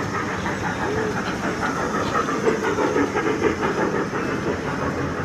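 Small ride-on trackless mall train passing close by, a fast, even rhythmic chugging over a steady low hum, loudest about halfway through.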